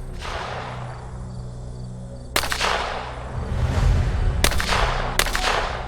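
Three gunshots, each followed by a short echoing tail: the first about two seconds before the second, the second and third less than a second apart.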